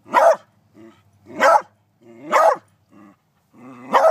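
Beagle barking: four loud barks about a second apart, with quieter, shorter sounds between them.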